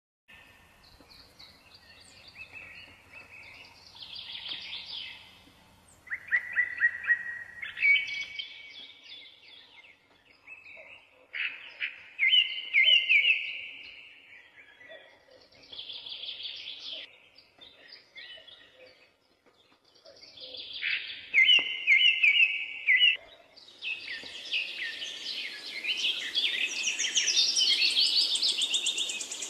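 Songbirds singing at dawn: short phrases of varied whistled notes with pauses between them, and near the end several birds singing at once in a denser chorus.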